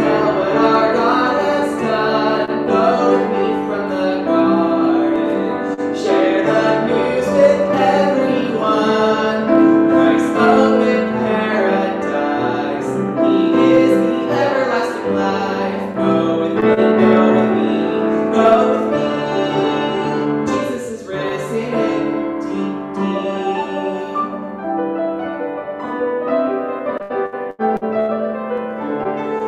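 Piano music played on an upright piano in a church.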